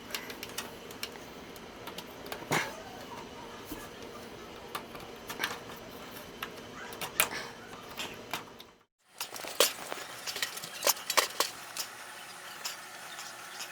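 Scattered clicks, taps and light rattles of computer hardware being handled and fitted into a PC case. The sound drops out completely for a moment about nine seconds in.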